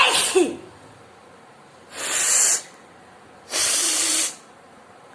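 A person sneezing: a sharp burst with a cry that falls in pitch, then two long, breathy bursts of air about a second and a half apart.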